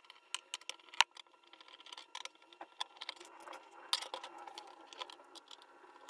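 Scattered clicks and metallic clinks of a bench power supply's sheet-metal cover being handled and lifted off, with a screwdriver at the case screws; a sharp knock about a second in is the loudest.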